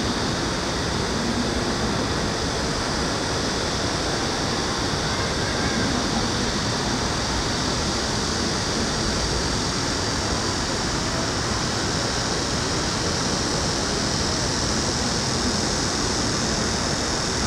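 Steady city ambience in an open plaza: an even, unbroken wash of urban noise with a high hiss above it, holding one level throughout.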